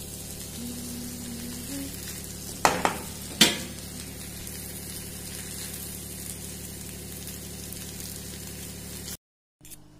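Vegetable noodles frying in a wok, a steady sizzle as they are stirred, with two sharp knocks of the wooden spatula against the pan about three seconds in.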